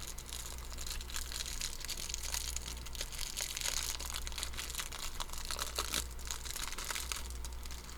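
Foil trading-card pack wrapper crinkling and tearing as it is opened and handled: a continuous dense crackle, with a low steady hum underneath.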